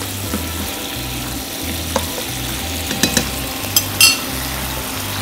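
Sliced red onions sizzling in a pan of olive oil, vinegar and sugar, the finished Sicilian sweet-and-sour onion base (cipollata), as they are stirred. A few sharp clicks of the utensil against the pan about two, three and four seconds in.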